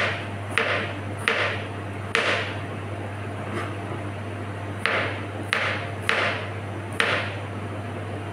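Kitchen knife chopping bottle gourd on a plastic cutting board: sharp knocks of the blade through the gourd onto the board. Four come in the first two seconds, then a pause of about two and a half seconds, then four more about half a second apart.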